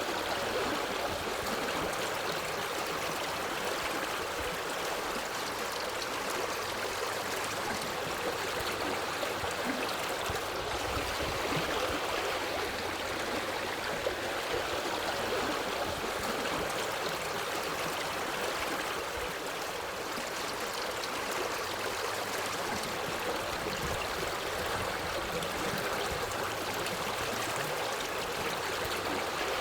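Forest stream flowing over rocks: a steady rush of water with a light burbling and trickling, unchanging throughout.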